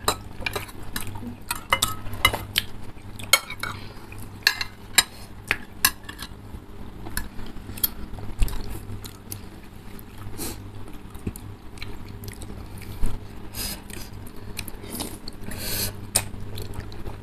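Metal forks and spoons clinking and scraping against ceramic bowls of noodle soup in irregular sharp clicks, with noodles being slurped and chewed. A few longer slurps come near the end.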